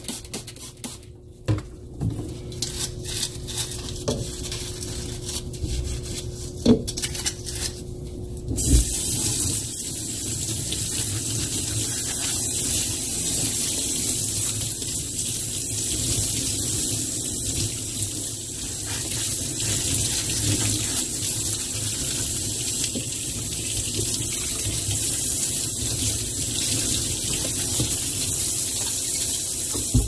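Plastic vacuum-cleaner part being scrubbed with a bristle brush and knocked about in a stainless steel sink, with scattered knocks. From about nine seconds in, the tap runs steadily over it as it is rinsed.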